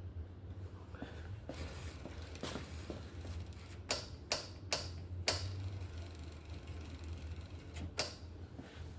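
Sharp clicks from hand work on a BMX bike's brake as its adjusting screws are tightened: four come quickly around the middle and one more near the end, over a steady low hum.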